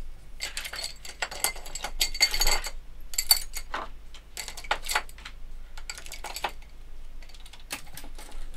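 Small hand tools (screwdrivers, scissors, pens) being picked up and put down on a desk, making a run of irregular clicks and clatters.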